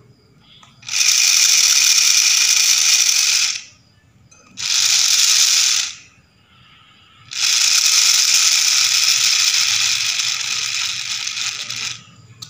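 Homemade two-speed RC car gearbox, driven by a rewound 775 DC motor, running in three bursts with a high whirring gear rattle. The bursts last about two and a half seconds, just over a second, and about four and a half seconds.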